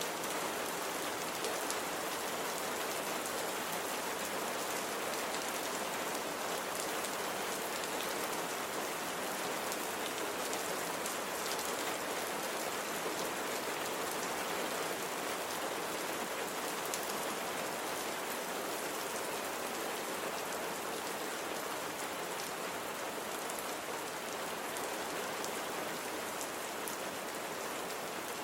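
Steady rainfall with the patter of drops on a surface.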